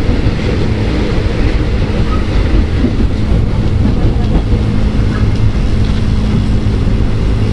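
Ex-Tokyu 8000 series electric commuter train running, heard from inside the car: a steady rumble of wheels on rail with a low steady hum.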